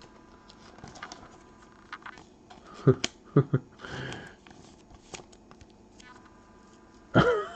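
Trading cards being handled and slid against each other, soft rustles and scattered clicks, with a few brief louder sounds about three seconds in.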